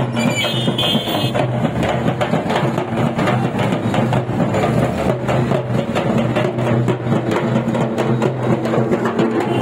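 Large hand-held frame drums beaten by a group of drummers in a fast, steady rhythm, over a steady low hum like an idling engine.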